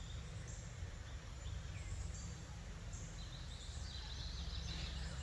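Outdoor ambience: a low steady rumble with faint, high bird chirps, several in the second half.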